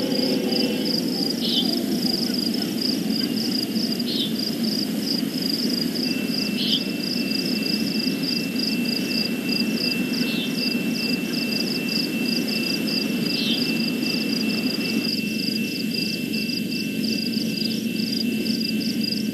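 Night insects chirping in a fast, even pulse, with a few lower chirps every couple of seconds, over a low steady rumble.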